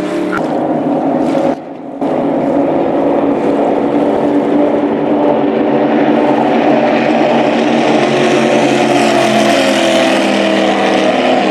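Water ski racing boats' engines running flat out, a loud steady drone with several pitch lines. It drops briefly about a second and a half in, then swells and brightens as a boat passes close near the end.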